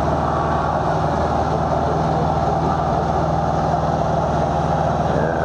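Old truck-mounted cable crane's diesel engine running steadily at an even speed.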